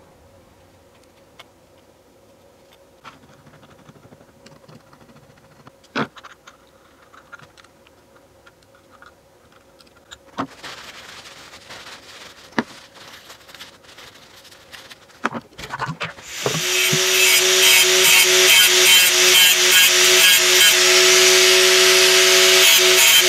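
Scattered clicks of parts being handled, then a rag rubbing. About two-thirds of the way in, an electric angle grinder starts and runs loud, grinding with a steady whine.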